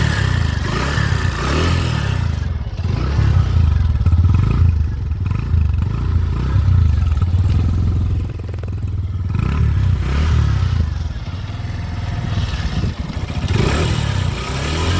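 Hero Glamour X 125 motorcycle's single-cylinder engine running and revved up several times, rising and easing, in its power riding mode.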